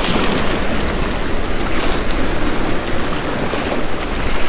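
Rough sea surf breaking and rushing over shore rocks in a steady, loud wash, with gale wind rumbling on the microphone.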